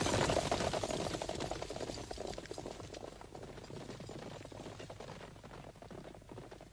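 Galloping horses' hooves, a rapid dense clatter that fades steadily away.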